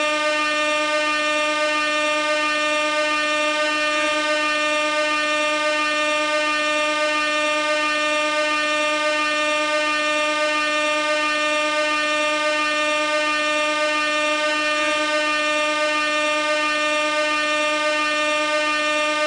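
Air horn held in one continuous blast at a single steady pitch, with no break.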